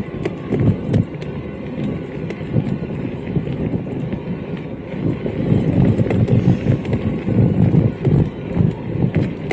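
Electric mountain bike being ridden over a rough trail: an uneven rumble from the tyres and ground, with scattered clicks and rattles.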